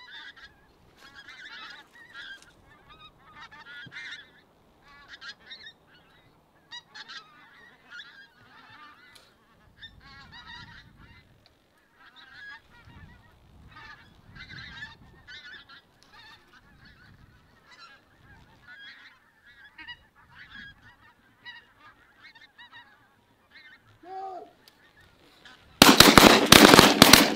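A flock of pink-footed geese calling overhead, a constant chatter of short overlapping calls. Near the end, several shotguns fire in quick succession, much louder than the geese.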